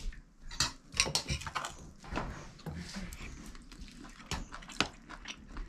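Spoons clinking and scraping against plates and bowls as people eat, a scatter of many light clinks.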